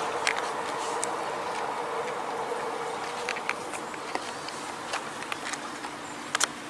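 A steady insect buzz that fades out about halfway through, over small clicks and scratches of a multi-tool knife blade cutting birch bark, the sharpest clicks near the end.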